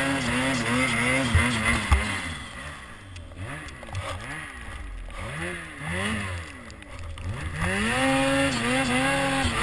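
Ski-Doo Freeride 850 turbo two-stroke snowmobile engine under heavy throttle in deep powder. Its revs drop after about two seconds and are blipped up and down about once a second for several seconds, then held high again near the end. Two sharp knocks come between one and two seconds in.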